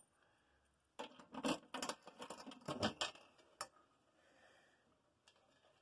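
Handling noise: a quick run of small clicks, taps and rattles of hard objects being moved, starting about a second in and lasting nearly three seconds, then quiet room tone.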